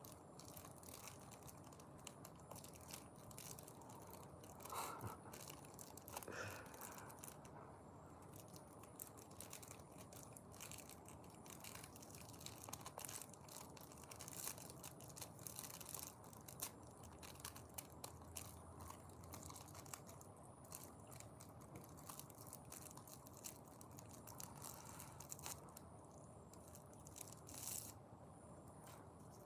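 Faint crinkling and rustling of a rolling paper as a joint is rolled between the fingers, a scatter of small soft clicks and rustles over a quiet room.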